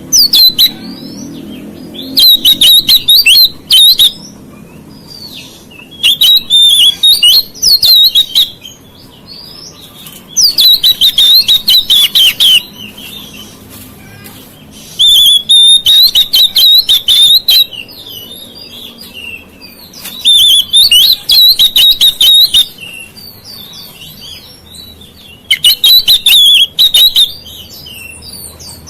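Oriental magpie-robin (kacer) singing loud, rapid, clicky phrases about two seconds long, six times with quieter chirps in between: an agitated song of the kind played to provoke other magpie-robins.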